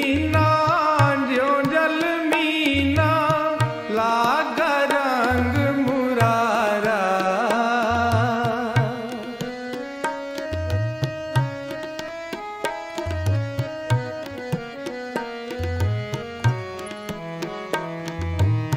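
Background music, a Sikh devotional kirtan: a voice sings over tabla for about the first half. It gives way to tabla strokes under steady held notes.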